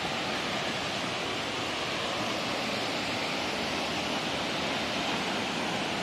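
Steady rushing of a waterfall about 50 metres high and of the rocky stream running below it.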